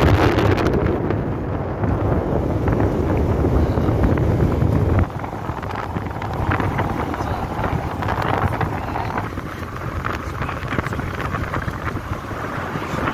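Wind rushing over the microphone of a phone filming from a moving Volkswagen Golf Mk5, with road noise beneath. The heavy low buffeting drops off suddenly about five seconds in.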